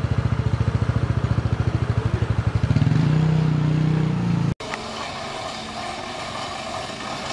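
Small engine running close by with a rapid, even beat, then rising to a higher steady pitch about three seconds in; it cuts off abruptly about four and a half seconds in, leaving quieter background noise.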